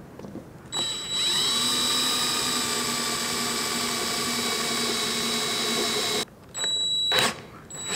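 Cordless drill running a reverse drill bit and easy out to back a broken idle jet out of a carburetor body: one steady run of about five seconds, its whine dipping as the bit takes hold, then two short bursts near the end.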